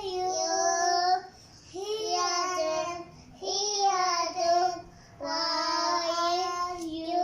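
A young child singing unaccompanied in long, high held notes: four drawn-out phrases with short breaks between them.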